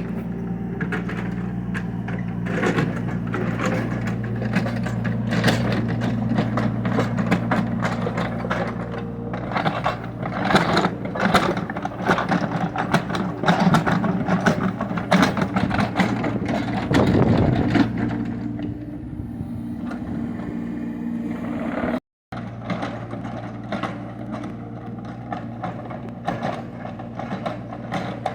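Kubota mini excavator's diesel engine running steadily while the bucket scrapes, knocks and crunches through soil and stone. The scraping is busiest through the first two-thirds, then eases to mostly engine with lighter knocks, broken by a very short gap in the sound.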